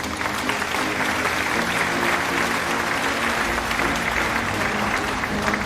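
Applause, a dense clapping that starts abruptly, over background music.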